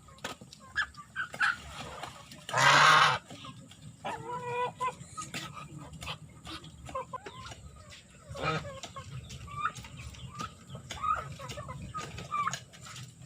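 Backyard chickens clucking, many short calls throughout, with one much louder, short squawk about two and a half seconds in.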